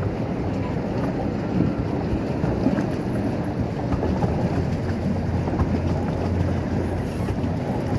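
Steady low rumble of wind buffeting the microphone on an open pedal boat on the lake.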